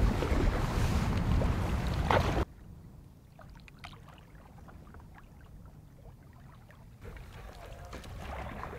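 Wind rushing over the microphone for about two and a half seconds, then a sudden cut to quiet water around a canoe, with small scattered splashes and drips. Near the end the wind noise comes back more softly.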